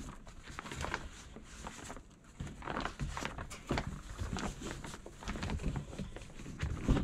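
Fabric rustling and light, irregular knocks and clicks from the frame poles as the seat's corner loops are pulled over the pole ends of an ultralight folding camping chair.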